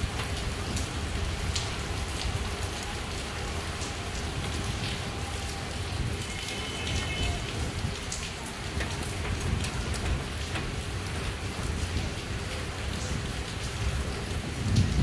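Heavy rain falling steadily, with scattered sharp taps of drops landing close by and a gusty low rumble underneath.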